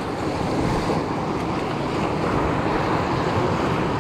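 Fast whitewater river rushing and splashing around a raft: a steady, even rush of water.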